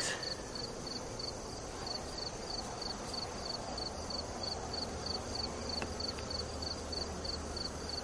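An insect chirping in a steady, even rhythm, about three short high chirps a second, over a soft continuous hum of honey bees around an open hive.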